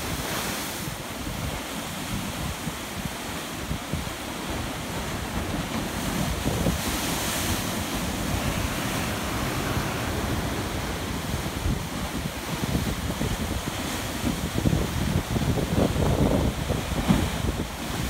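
Ocean surf breaking and washing against a rocky shoreline, water streaming back off the rocks, with wind rumbling on the microphone. It grows louder and rougher over the last few seconds as a bigger wave crashes into the rocks.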